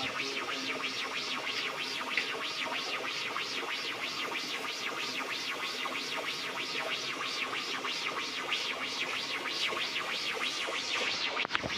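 Electronic music with a fast, even scratchy beat of about four or five strokes a second, dropping out for a moment near the end.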